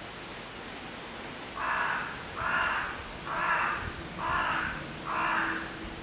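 A crow cawing five times in a row, harsh calls of about half a second each, roughly one a second.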